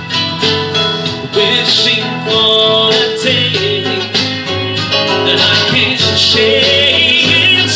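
Live country-style music from an acoustic guitar and a Roland Juno-G synthesizer keyboard playing together.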